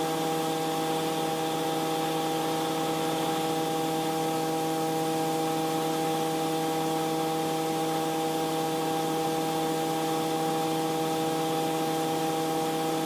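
Piston engine and propeller of an aerobatic biplane droning steadily in climbing flight, heard from the open cockpit with a hiss over it.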